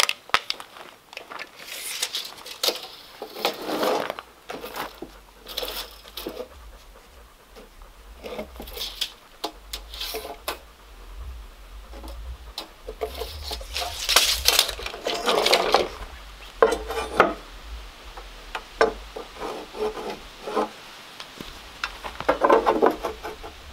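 Wooden boards knocking and scraping as they are set down, shifted and measured, with scattered light clicks and rubs at irregular intervals.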